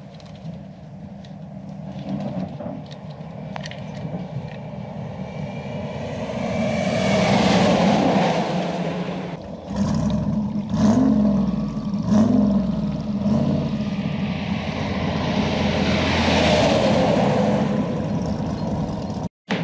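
Traffic passing close by on a highway, a semi truck among it. The sound swells up to a rush of wind and tyre noise about seven seconds in, an engine drones by, and a second vehicle swells past near the end.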